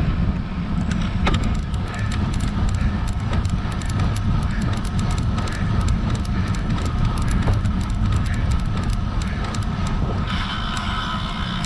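A road bike on the move, with steady wind and road rumble on the camera microphone. Rapid light ticking runs from about a second in until near the end, when a brighter hiss comes in.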